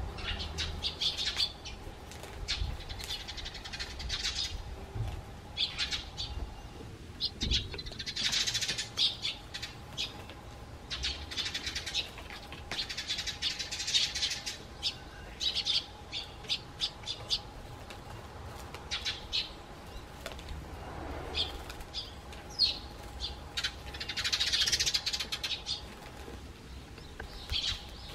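Eurasian tree sparrows dust-bathing in fine soil and gravel: repeated bursts of wing-fluttering and grit being thrown about, each about a second long, with short sharp ticks between them.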